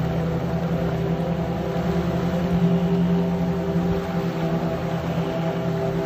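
Small sea waves washing over shoreline rocks, under a steady low drone with an unchanging pitch.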